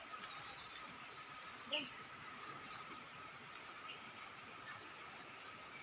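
A chorus of insects calling in vegetation: a steady high-pitched trill with a fainter lower hum beneath it. A single brief short sound comes through less than two seconds in.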